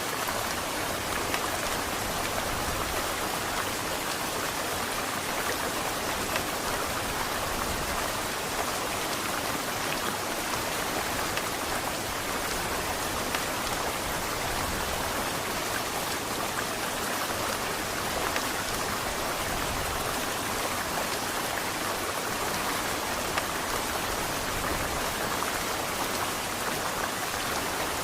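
Heavy rain falling steadily, an even hiss with a few louder drop hits.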